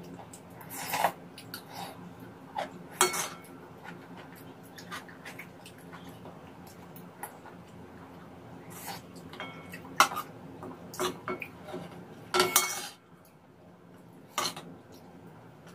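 A metal spoon clinking and scraping against a plate and a pan while scrambled egg and tomato are scooped up and eaten, a handful of sharp, briefly ringing clinks among quieter scrapes, over a steady low hum.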